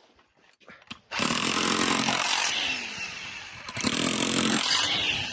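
About a second of near silence, then a power tool starts running loudly, easing off briefly a little past the middle before picking up again.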